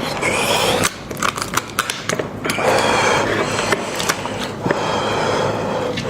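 Close-miked mukbang eating of spiced sheep and goat head: wet chewing and tearing of meat off the bone, with many sharp clicks and scrapes.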